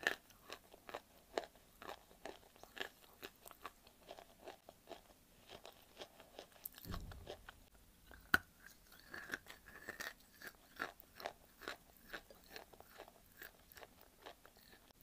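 Close-up crunching and chewing of dry white clay: quick gritty crunches, several a second. About eight seconds in, one sharp snap of a bite into a large chunk stands out.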